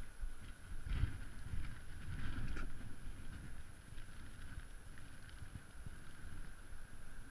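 Wind buffeting the microphone in low rumbling gusts, strongest about a second in and again around two and a half seconds in, over the steady rush of a flooded river.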